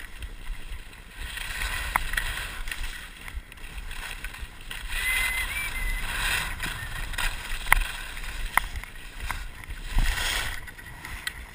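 Skis hissing and scraping over packed snow during a downhill run, with wind rumbling on the camera's microphone and a few sharp clicks.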